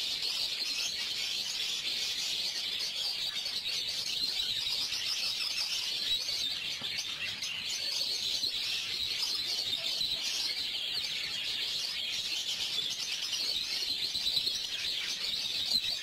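A cage full of budgerigars chattering and chirping together, a dense, unbroken stream of quick high chirps.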